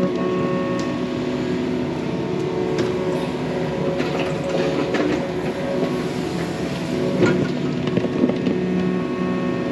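Yanmar mini excavator's diesel engine running steadily under working load while it digs through a dirt pond dam, with a few sharp knocks from the digging.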